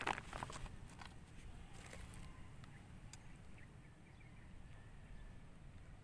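Crackling rustles of hands working among leafy plants and plastic, a burst right at the start, then a few scattered light clicks, over a low steady rumble.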